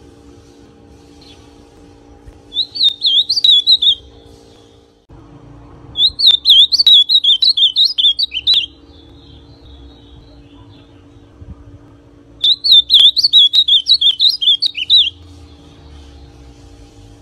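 Young male ultramarine grosbeak (azulão), still in brown 'pardo' plumage, singing three quick warbling song phrases a few seconds apart, each about one and a half to three seconds long.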